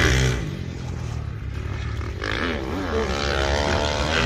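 Motocross bike engine revving up and down as it is ridden around the track, loudest right at the start and with the pitch rising and falling repeatedly in the second half.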